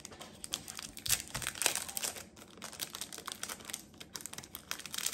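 Small clear plastic jewelry packet crinkling and crackling in the fingers as earrings are worked out of it, in irregular bursts that are busiest between one and two seconds in.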